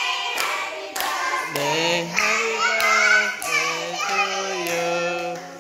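Hands clapping in the first couple of seconds, then a birthday-party song with long, steady held notes stepping from one pitch to the next.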